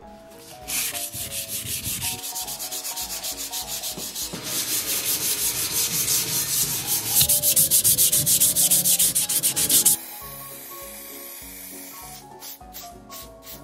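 Abrasive hand-sanding of a welded square-steel-tube frame: rapid back-and-forth scraping strokes, about five a second. The strokes get louder about four seconds in and stop abruptly near ten seconds, leaving faint background music and a few light clicks.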